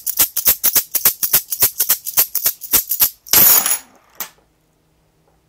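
Fast, even rattling clicks, about seven or eight a second, shaken during a shaman's spirit invocation for a divination, ending about three seconds in with a brief scattering hiss and one last click.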